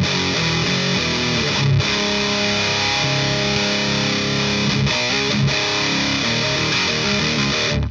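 Heavily distorted electric guitar played through a Rivera Knucklehead Reverb KR100 tube amp in high gain: ringing held chords broken by short sharp stops, then quicker picked notes near the end.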